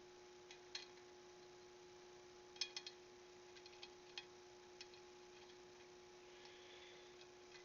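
Faint, scattered small metallic clicks and clinks of motorcycle spoke nipples being turned by hand on a laced wheel, irregular and a few at a time, over a steady faint hum.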